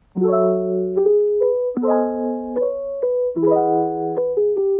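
Background music: a piano playing a slow run of chords, a new chord about every second and a half, with single notes between.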